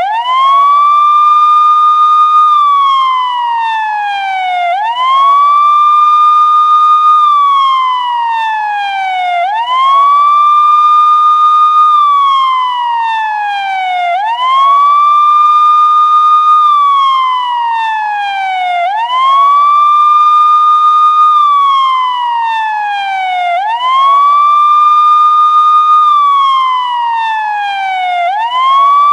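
Police siren sounding its wail: each cycle jumps quickly up to a high tone, holds it for about two seconds, then slides steadily down before jumping up again, repeating about every four and a half seconds, some six times.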